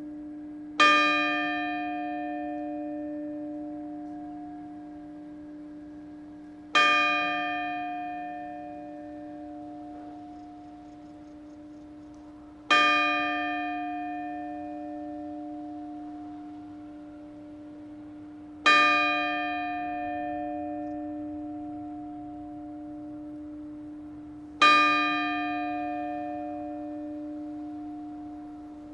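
A single church bell tolling slowly: five strokes about six seconds apart, each ringing out and dying away slowly, with a steady low hum that carries on between strokes.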